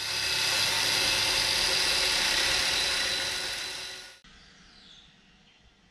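Power tool cutting a slit down an old bearing's outer race, a loud steady high-pitched cutting noise for about four seconds that stops abruptly. The slit race will serve as a driver for knocking in the new bearing.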